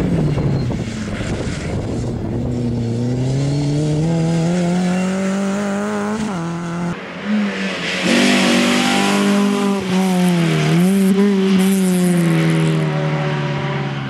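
Rally car engines at full throttle, the pitch climbing steadily and dropping back at gear changes, with a short break about seven seconds in and another dip around ten and a half seconds in. A rushing hiss of tyres on the road rises about eight seconds in.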